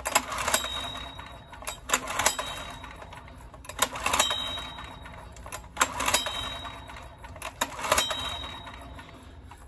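Recoil pull-starter of a Honda EX1000 suitcase generator yanked five times, about every two seconds: each pull a short ratcheting whir as the engine turns over without catching. It is a no-start, though there is fuel in it.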